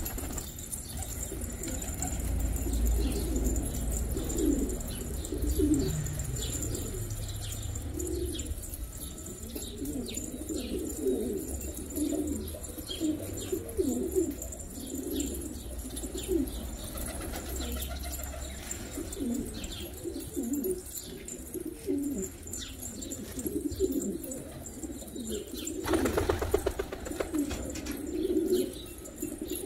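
A flock of domestic pigeons cooing, with many short coos overlapping one after another.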